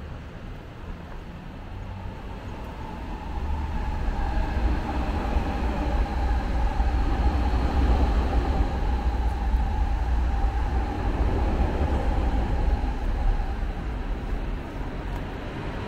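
A train passing by: a deep rumble that builds a few seconds in, is loudest in the middle with a steady whine over it, and fades near the end.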